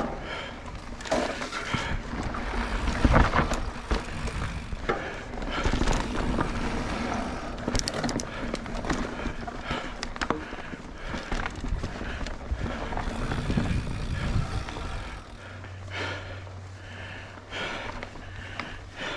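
Mountain bike riding over singletrack: tyres rolling over dirt and roots with frequent knocks and rattles. A steady low hum joins in for the last few seconds.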